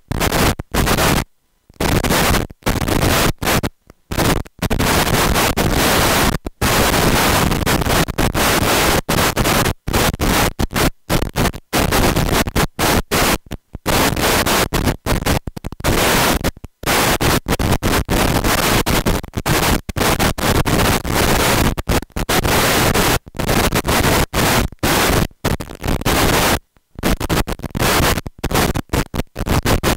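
Loud, harsh static hiss that fills the whole frequency range and keeps cutting out abruptly for a moment at irregular intervals, like a broken audio feed.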